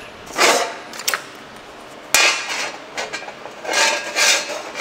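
A steel rule knocks and scrapes against a freshly welded thin sheet-steel panel as it is laid across the weld to check the distortion. Several light metallic knocks and scrapes; the sharpest comes about two seconds in, with a pair near the end.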